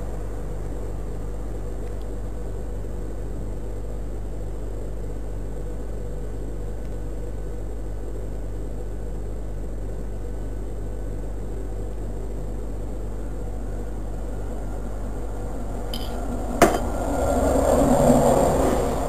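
Steady low hum and hiss from a security camera's audio. Near the end a sharp click is followed by about two seconds of louder, muffled noise.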